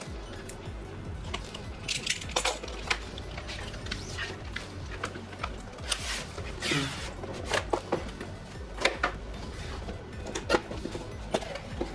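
Packaging being handled and opened: scattered clicks, knocks and crinkling rustles of cardboard and plastic, over faint background music.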